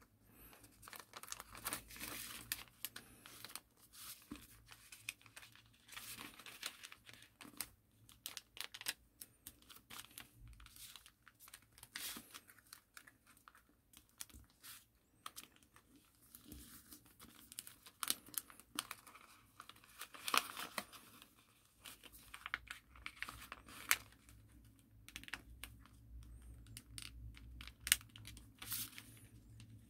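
A sheet of origami paper being handled, folded and creased by hand: faint, irregular rustling with many short crackles, a few of them sharper.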